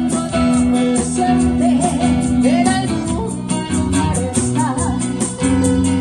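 A song with a steady accompaniment of guitar and bass under a woman's singing voice that slides between notes.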